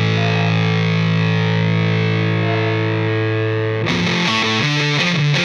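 Background rock music with distorted electric guitar: a long held chord, then about four seconds in a choppy, rhythmic guitar part of short repeated notes.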